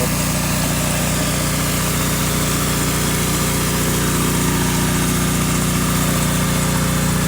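Pressure washer running steadily under load while a spinning surface cleaner sprays water jets onto concrete: an even engine hum with a constant hiss of spray.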